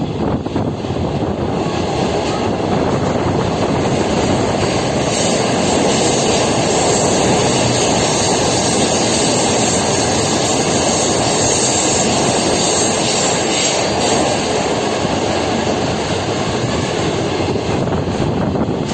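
Moving train running along the track: a steady rumble and rushing noise, which grows louder and hissier from about five seconds in until about fourteen seconds in.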